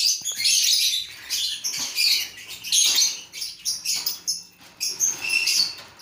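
Caged lovebirds chattering: a dense, overlapping run of quick, high-pitched chirps and calls.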